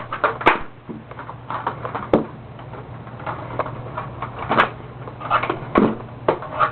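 Irregular clicks and knocks as the power cord is unwound from the hooks of an upright Hoover WindTunnel vacuum cleaner.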